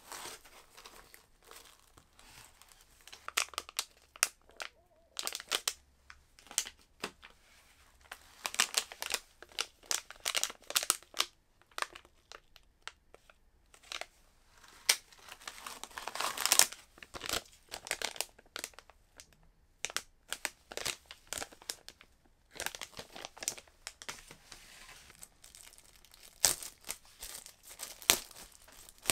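Thin plastic packaging crinkling and rustling in gloved hands as a laptop-style portable monitor is unwrapped: irregular bursts of sharp crackles with short pauses between them.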